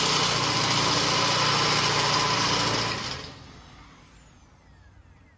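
Power tool motor running steadily, then winding down with a falling pitch and dying away about three seconds in.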